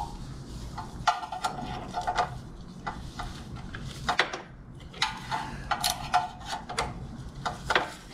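Hand ratchet clicking in two quick runs while working a motor mount nut, with a few sharp metallic knocks of the tool in between.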